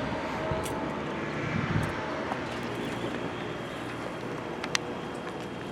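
Distant engine noise, steady and slowly fading away.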